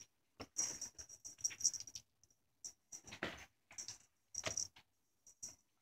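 Faint, irregular rustles and scratches, several short bursts a second or so apart, as a cat bats at and grabs a rope teaser toy on bedding.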